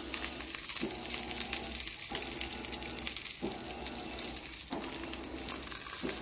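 Andouille smoked sausage halves sizzling and crackling in a skillet of hot rendered fat: the added water has boiled off and the meat is browning. Under the sizzle a faint tone repeats about every second and a quarter.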